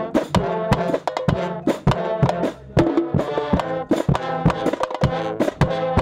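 Music: a brass instrument playing a melody over drums and percussion with a steady beat.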